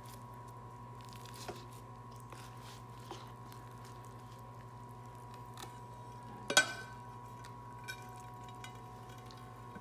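Spatula cutting and lifting a piece of baked pasta casserole in a metal baking pan: a few faint scrapes and clicks, and one sharp clink with a short ring about six and a half seconds in. A steady low hum runs underneath.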